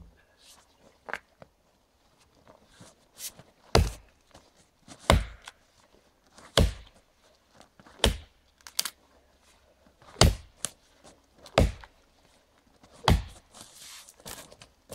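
Fiskars axe chopping into a thin standing tree trunk: a sharp chop about every one and a half seconds, seven strong strokes with a few lighter knocks between.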